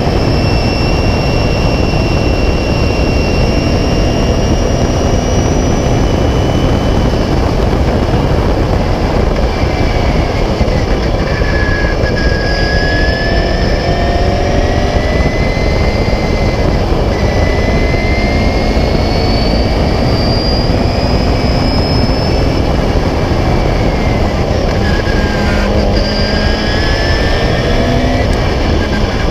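Onboard sound of a 1976 Beagle Mk4 Clubmans racing car at speed: the engine note rises and falls through the gears under a loud, steady rush of wind noise on the microphone.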